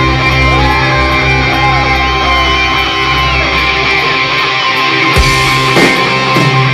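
Loud live rock music led by electric guitar, with some bent or gliding guitar notes.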